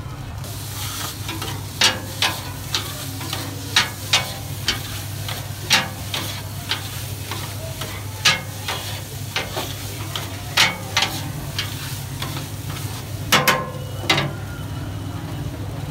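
Food sizzling on a hot griddle while a metal utensil knocks and scrapes against it in irregular sharp clacks, loudest near the end, over a steady low hum.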